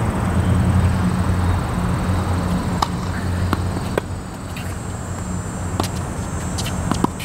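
Tennis rally on a hard court: a tennis ball being struck by rackets and bouncing, heard as a handful of sharp, separate pops a second or so apart, under a steady low rumble.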